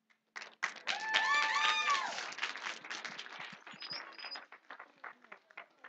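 Congregation applauding, with a voice calling out over the clapping about a second in; the clapping thins to scattered claps after about four seconds.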